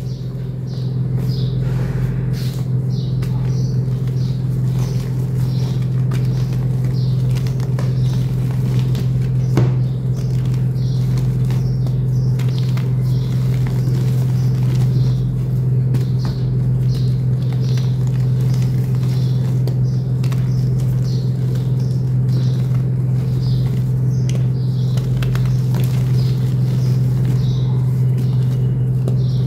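Hands crushing and crumbling soft homemade gym chalk blocks into powder: faint, soft crunching several times a second over a loud, steady low hum.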